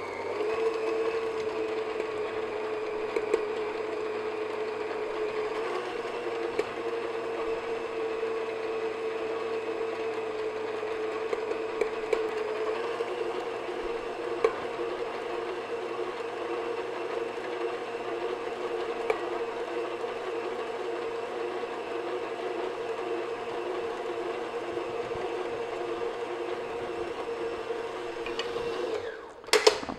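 Electric stand mixer running on low with its paddle attachment, creaming butter as sugar is gradually added: a steady motor whine that cuts off about a second before the end, followed by a few clinks.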